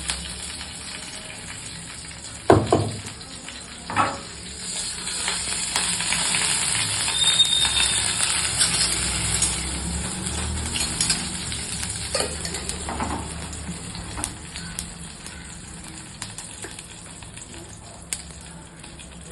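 Tempering in a kadai: mustard seeds and curry leaves sizzling in hot oil, a steady frying hiss that swells for several seconds and then eases. A few knocks of a utensil against the pan stand out, the loudest early on.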